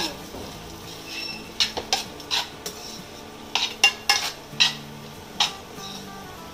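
Metal spoon scraping and clinking against a kadhai as chopped cashews and almonds are stirred in hot ghee: about ten irregular strokes, with a faint sizzle of the frying nuts.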